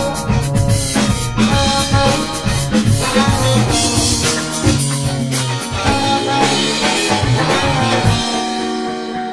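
Background music with a drum kit and bass. Near the end the drums and bass drop out and the music starts to fade.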